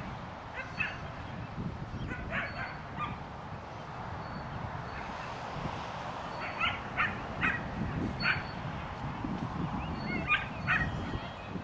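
A dog giving short, high-pitched yips and whines in several small clusters of one to four calls.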